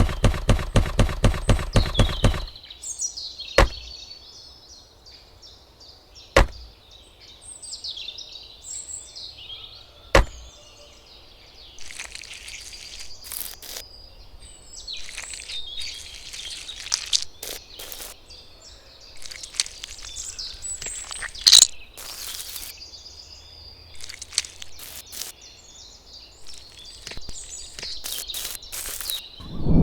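Birds chirping over outdoor background noise, with scattered sharp clicks and knocks. A quick run of even pulses fills the first two seconds or so.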